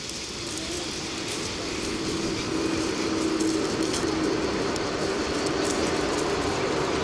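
A 2ES4K electric locomotive and its double-deck passenger coaches passing on the rails. The wheel noise builds over the first two or three seconds and then holds steady, with a steady hum through it.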